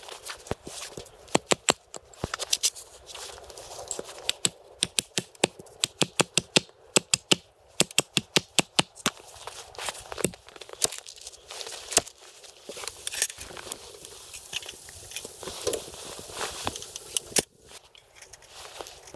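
A long run of sharp snaps and cracks over a rustling, crinkling background, thickest in the middle stretch and thinning out towards the end.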